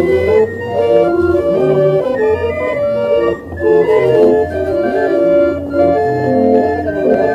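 Berlin-built hand-cranked street barrel organ playing a tune: held pipe notes carrying the melody over a regularly pulsing bass.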